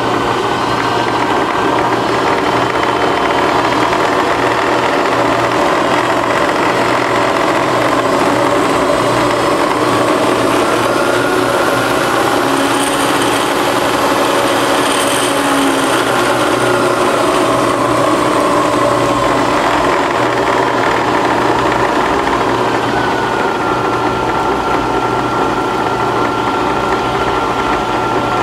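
Bridgeport Series I CNC milling machine's spindle running with a steady low hum and a whine whose pitch slowly rises and falls several times as the spindle speed is changed, settling to a steady pitch near the end.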